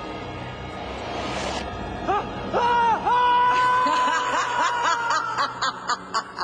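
A high woman's voice starts over eerie background music, holds one long note for about three seconds, then breaks into a quick run of short laughing bursts, like a cackle.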